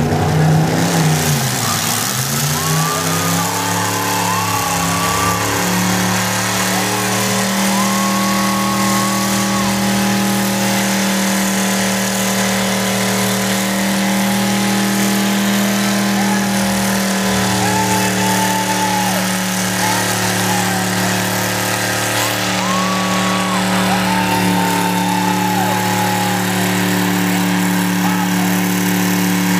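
Hot rod's engine held at high, steady revs through a long burnout. The pitch dips and climbs back in the first few seconds, then holds level under a broad hiss.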